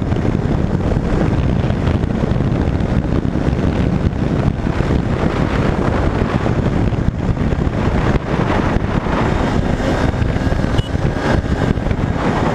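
Wind buffeting the microphone over a motorcycle engine cruising at around 60 km/h. The noise is loud and steady throughout.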